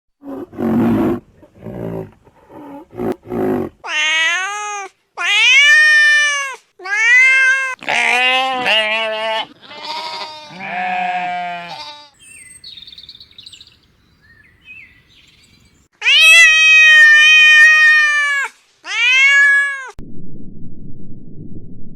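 A run of high-pitched animal calls, each arching up and down in pitch: several short calls, then two long, loud ones. A few short low grunting pulses come first, and a low rumbling noise starts near the end.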